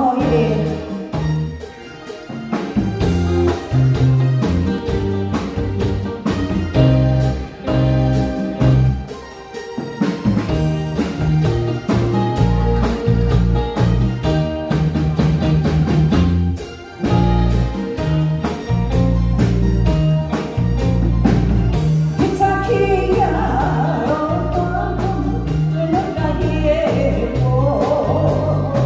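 Live band playing a slow song on drum kit, electric guitars and electronic keyboard, with a steady beat and bass line. A woman's singing comes in over the band about 22 seconds in.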